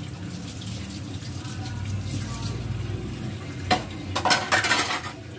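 Dishes and utensils clattering at a kitchen sink over a steady low hum: a single sharp clink a little after three and a half seconds in, then a short burst of clattering just after.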